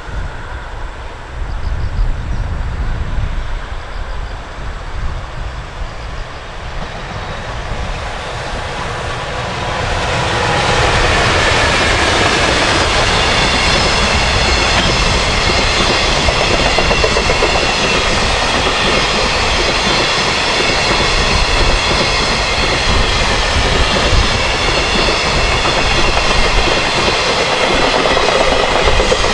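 Strong wind buffeting the microphone, then a freight train hauled by an electric locomotive arrives about ten seconds in and runs past close by. Its wagons clatter steadily over the rail joints.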